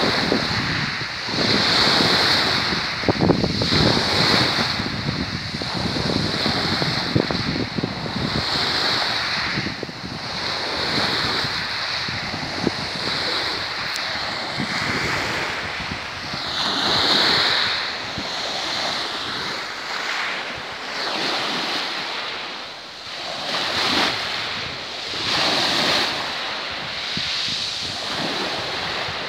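Small sea waves breaking and washing over a pebble shore, surging and easing every couple of seconds, with wind rumbling on the microphone, heavier in the first half.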